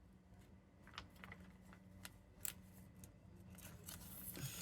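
Faint handling noise of plastic card sleeves and binder pages: scattered light clicks and crinkles, with a slightly louder rustle near the end.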